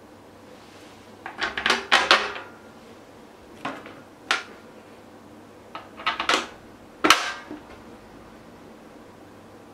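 Small metal screws being fitted one by one through the plastic flange of a cyclone dust collector's cone into a bucket lid: clicks and clinks of metal and plastic handling. They come in short clusters with quiet gaps, the busiest about two seconds in and a sharp single click about seven seconds in.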